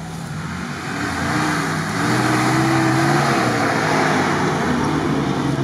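A small lifted 4x4, a first-generation Suzuki Vitara on mud tyres, driving up under power toward the listener: its engine note climbs over the first few seconds and grows steadily louder as it comes close.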